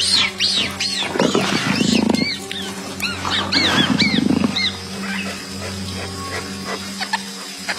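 Big cat growling twice in low, rough growls, with a run of high, arching squeaky calls, about four a second, thinning out after about four seconds, over a steady background music bed.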